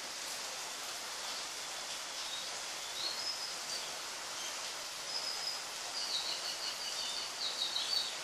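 Steady hiss of background noise, with a few faint, short high chirps from about three seconds in and a quick run of them near the end.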